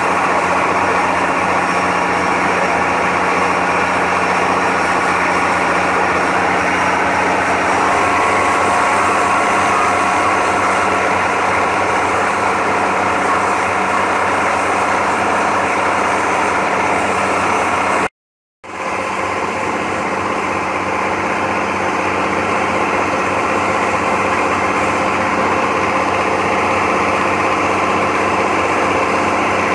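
Long-tail boat engine running steadily at cruising speed, with water rushing past the hull. The sound cuts out for a moment a little past halfway, then resumes.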